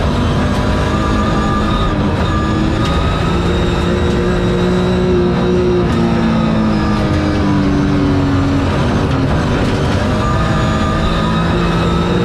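BMW rally car's engine heard from inside the cabin at speed on gravel: the revs climb, hold, drop away for a few seconds in the middle and climb again near the end. Steady tyre and gravel noise runs underneath, with a few sharp ticks.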